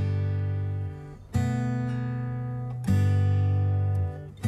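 Background music of strummed acoustic guitar chords, a new chord struck about every second and a half and left to ring out.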